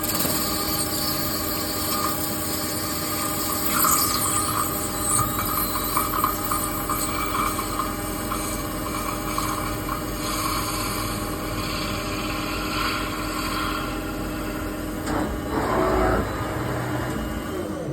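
CNC lathe turning a cast nylon (Kestamid) workpiece: the machine runs with a steady hum under the hiss of the tool cutting. A higher tone rises and falls through the middle of the cut, and the sound swells briefly near the end.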